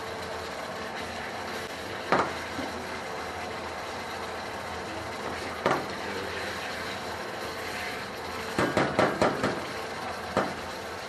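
Cooking utensil knocking sharply against a pan: single knocks now and then, and a quick run of several knocks about nine seconds in. A steady hiss and hum lies under the knocks.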